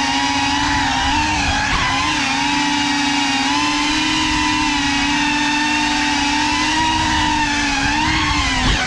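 Electric motors and propellers of a GEPRC Cinelog 35 3.5-inch cinewhoop drone whining steadily in flight at a nearly constant pitch, which dips and rises briefly about two seconds in and again near the end.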